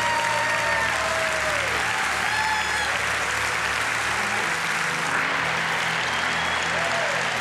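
A church congregation applauding steadily, with a few voices cheering over the clapping.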